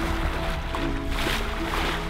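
Background music with held notes, over the rushing hiss of water streaming past a sailboat's hull.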